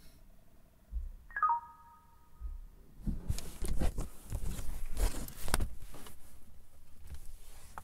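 A short electronic beep about a second and a half in. From about three seconds on, the recording device is picked up and handled, with irregular rustling against clothing and a few sharp knocks.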